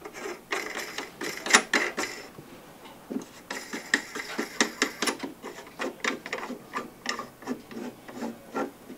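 Threaded headset nut being spun down by hand onto a Razor Crazy Cart steering neck over freshly greased headset bearings: metal threads rasping and clicking in short strokes, about three a second, with a brief pause partway through.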